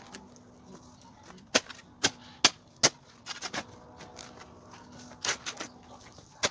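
A series of sharp knocks: four loud ones evenly spaced less than half a second apart about a second and a half in, then quieter clusters of knocks later on.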